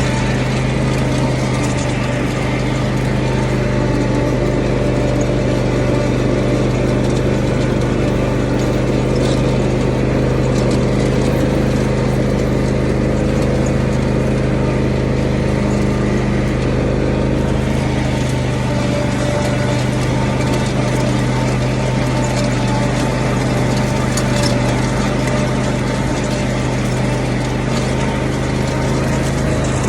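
Riding lawn mower engine running steadily at raised throttle, with a few light clicks over it.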